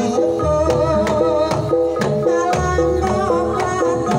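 Banyumasan gamelan music for a tayub dance played live: keyed percussion in a quick repeating pattern with kendang drum strokes, and a female sinden's voice gliding and wavering above it.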